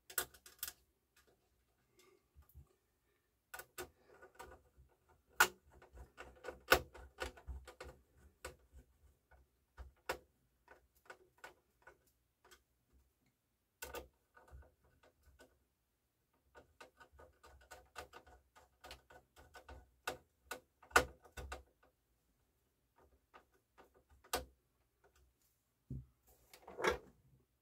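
Small screws being driven by hand screwdriver into the front of a CD changer's disc tray: several bursts of quick, fine ticking as the screws turn, with sharp clicks of the tool against the parts and a brief louder knock near the end.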